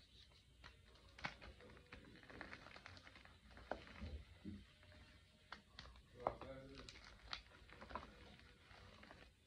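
Soft, fresh chalk blocks being crushed and crumbled in the hand, giving faint, irregular crunching and crackling with a few sharper snaps, the loudest a little past the middle.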